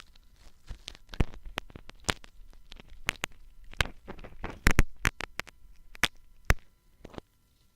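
Close-up ASMR ear-cleaning tools scratching and clicking in an ear, in irregular crisp strokes, with the loudest cluster about two-thirds of the way through. The strokes stop shortly before the end.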